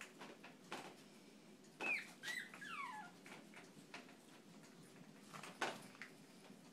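Chihuahua puppies play-fighting, giving a few high, squeaky yelps that slide down in pitch about two seconds in, among scattered light clicks and scuffs of paws on the tile floor.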